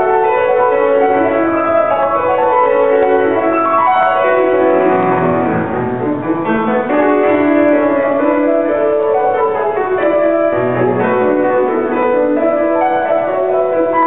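Grand piano played solo, many quick notes over lower chords, with a fast run sweeping down the keyboard about five seconds in.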